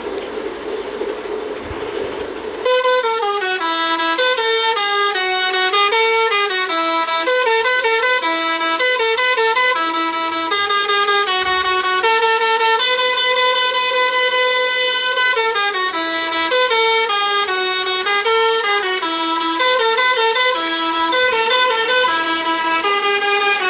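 Basuri telolet bus horn playing a multi-note melody: clear horn notes step up and down in a tune, starting about three seconds in after a steady noisy hum.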